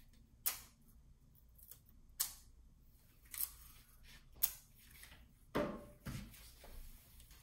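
Strips of clear tape pulled and torn off a handheld tape dispenser: four short, sharp rips a second or so apart. Then a heavier knock as the dispenser is set down on the table.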